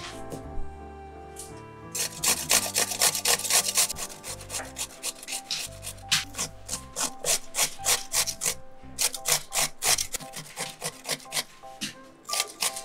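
Pickled gherkins being grated on a stainless-steel conical grater: quick, regular rasping strokes, about four or five a second, starting about two seconds in with a few short breaks.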